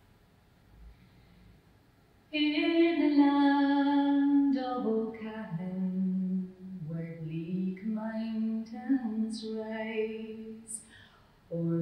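A woman singing solo and unaccompanied, coming in about two seconds in with slow, held notes: the opening of a traditional Irish ballad.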